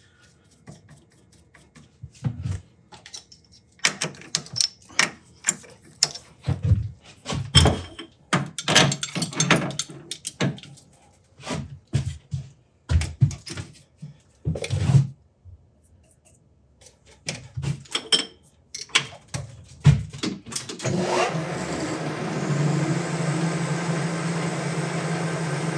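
Metal tools and lathe parts being handled: a long run of clinks and knocks. Near the end the metal lathe starts with a short rising whine and then runs steadily with a low hum.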